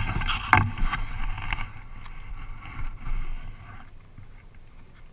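Handling noise as the camera pole is gripped and moved, with a sharp knock about half a second in, then water lapping against a Hobie sailing kayak's hull with light wind on the microphone, quieter from about four seconds in.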